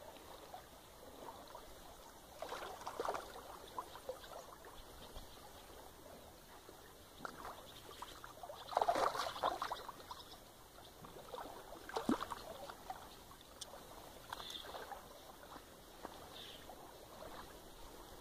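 Irregular splashing of water as a small carp hooked on ultralight tackle thrashes at the surface, with the loudest splashing about nine seconds in and shorter splashes around three and twelve seconds.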